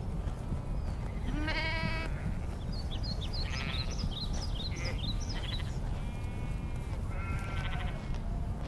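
Sheep bleating several times, the calls overlapping now and then, over a steady low rumble. A run of short high chirps comes in the middle.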